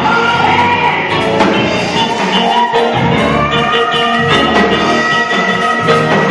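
Church gospel music: held chords over a steady drum beat, with some singing.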